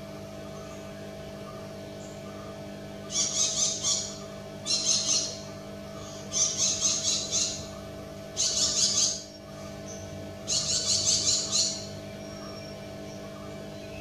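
Malabar parakeet calling: five bouts of rapid, shrill chattering notes, each about a second long and a second or so apart, beginning about three seconds in, over a steady low hum.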